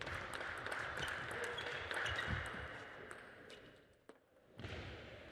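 Table tennis rally: the celluloid ball clicking off the players' rubber-faced bats and bouncing on the table in quick succession, echoing in a large hall. The clicks stop after about three seconds and the sound drops briefly before the hall noise returns.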